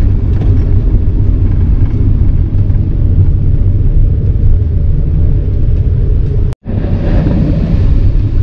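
Steady low rumble of a VW camper van's engine and tyres, heard from inside the cab while driving. It cuts out suddenly for a moment about two-thirds of the way through, then carries on.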